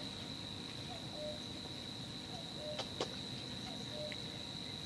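A steady high-pitched trill, insect-like, that breaks off right at the end. Behind it a cuckoo calls faintly, its two-note call repeating about every second and a half. A single soft click comes about three seconds in.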